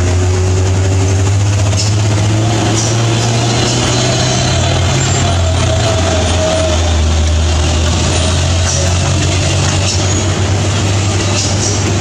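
Heavy diesel trucks running at low revs close by as they crawl through a tight bend, a deep steady engine drone with a few short high hisses.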